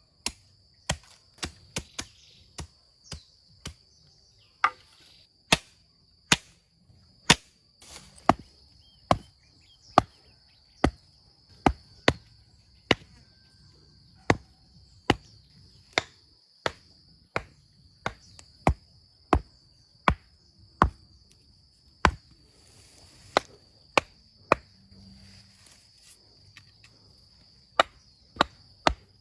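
Steady chopping with a hand tool: sharp strikes at about one a second. A continuous high insect drone, typical of crickets or cicadas, runs underneath.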